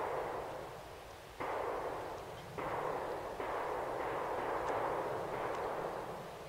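Distant gunshots from a rifle range, about five shots roughly a second apart. Each is a sudden, muffled report that rolls on in a long echo through the woods.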